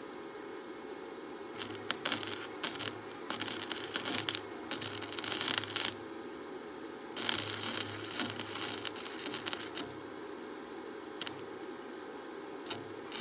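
Electric arc welding: the arc crackles and sizzles in runs of a few seconds, one starting about a second and a half in and a second after a short pause, over a steady background hum.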